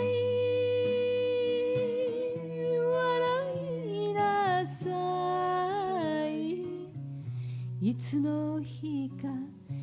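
A woman singing an Okinawan song with musical accompaniment. She holds one long note with vibrato, then sings a few shorter wavering notes. Her voice drops out a little past halfway, leaving the accompaniment.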